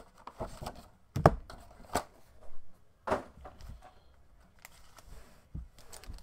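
Hands handling a cardboard trading-card box and its foam insert: several short knocks and rustles, the sharpest about a second in.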